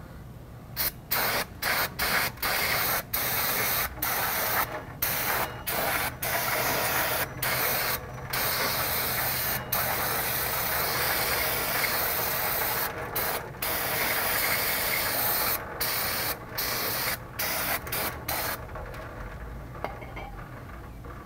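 Aerosol spray can hissing in many spurts of cleaner onto rear drum brake shoes and their backing plate. Some spurts are brief and some are held for a few seconds, starting about a second in and stopping a couple of seconds before the end.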